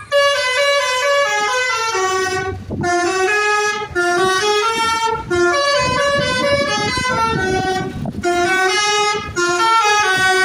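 Telolet basuri musical air horn on a Jetbus 3+ coach playing a tune, stepping from note to note, pausing briefly a few times between phrases.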